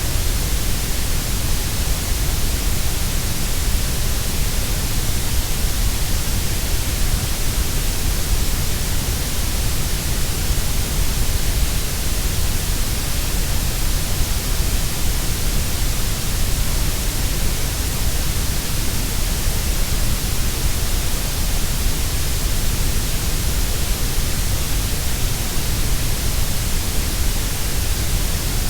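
Grey noise: a steady, unchanging hiss with a deep rumble under it, fuller in the bass and treble than in the middle.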